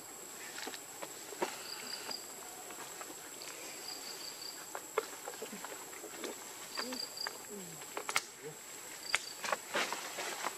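A steady high-pitched insect drone, with a short run of quick chirps recurring every couple of seconds, and scattered clicks and rustles of monkeys moving among dry leaves.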